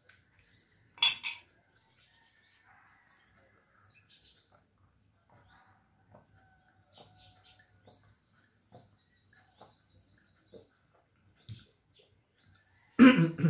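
Small birds chirping faintly in the background, with a short loud clatter of a metal spoon against a glass mug about a second in and a brief loud vocal sound from the man near the end.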